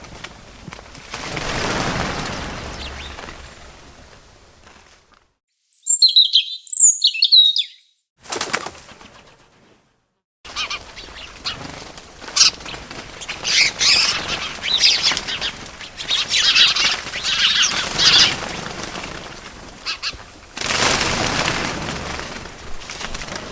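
Birds' wings flapping in whooshing swells and rustling flurries, with a few short, high chirps about six seconds in, between brief gaps of silence.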